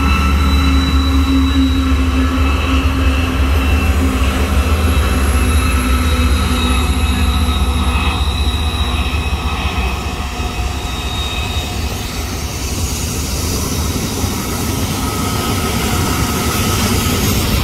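A BNSF freight train's GE diesel locomotives (ES44C4s and a C44-9W) pass close by with their engines running, and steady high-pitched wheel squeal on the curve. About twelve seconds in the engine sound eases and the freight cars roll past.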